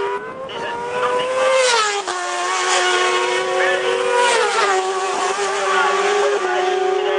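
A racing motorcycle engine at high revs, getting louder as it approaches. Its pitch climbs and then drops sharply twice as it changes up through the gears.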